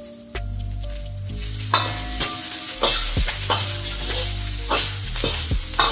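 Garlic, ginger and onion sizzling in hot oil in a carbon steel wok, the sizzle starting about a second in, as they are stir-fried to season the new wok. A spatula stirs and knocks against the wok about twice a second.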